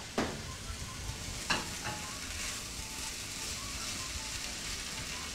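Rice and green spinach sauce sizzling in a hot, oiled frying pan while being stirred with a silicone spatula: a steady sizzle, with brief clicks just after the start and again about a second and a half in.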